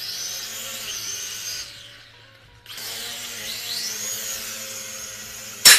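Small toy quadcopter drone's propeller motors whining, rising in pitch as they spin up. They cut out about a second and a half in, start up again about a second later, and a sharp knock comes near the end.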